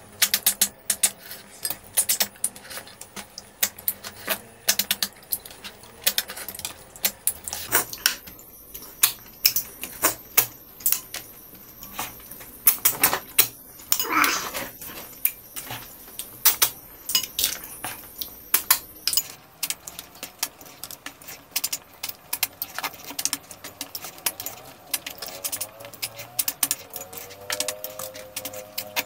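Eating sounds: snail shells clicking and clinking as they are picked from the plate and eaten by hand, in rapid, irregular clicks, with a longer slurp about 14 seconds in.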